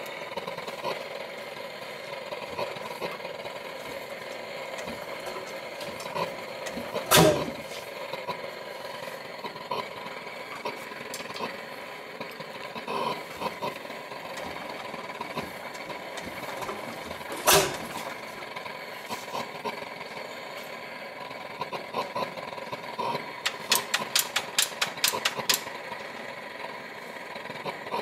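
Lanz Bulldog single-cylinder two-stroke hot-bulb engine being started: a steady mechanical running sound, broken by two loud sharp bangs about a quarter and about two-thirds of the way through. Near the end comes a quick run of regular firing pops, several a second, as the engine catches.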